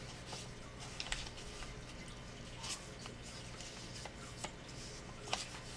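Scored paper being folded and creased by hand: scattered soft crackles and taps at irregular moments over a low steady hum.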